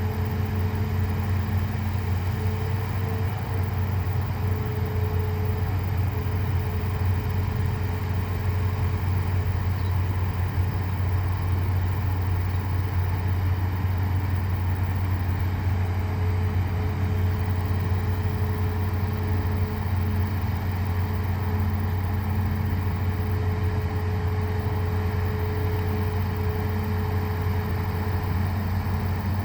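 Excavator's diesel engine running at a steady speed, a constant low hum with no revving.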